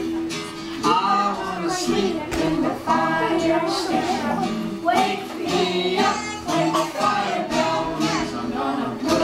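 A woman and a group of young children singing a song together, their voices carrying a tune without a break.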